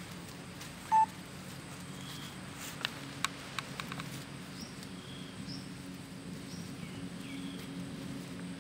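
Outdoor ambience: a steady low hum with faint bird chirps. A short, loud beep comes about a second in, and a few sharp clicks follow around three seconds in.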